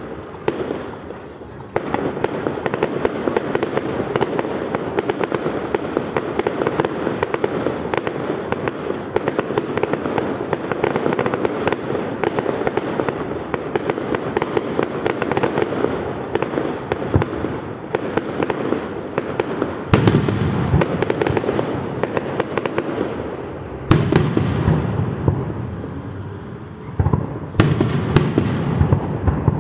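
Fireworks display: a long, dense stretch of crackling from many small bursts, then in the last ten seconds three or four loud bangs of large aerial shells bursting.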